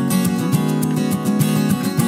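Background music led by a plucked and strummed acoustic guitar.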